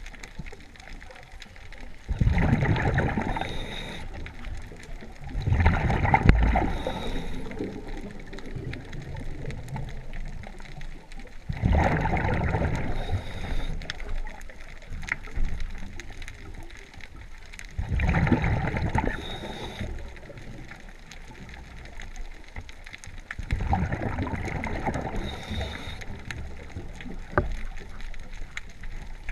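Scuba diver breathing through a regulator underwater: five loud rushes of exhaled bubbles, about every six seconds, with a quieter hiss between them.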